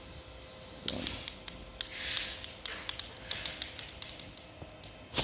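A blade cutting the excess windshield protection film against the glass: a run of sharp ticks with short scraping hisses. A low thump comes at the very end.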